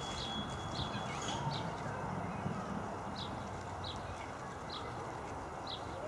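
A bird repeating a short, high call note about once every three-quarters of a second, over a steady low background rumble.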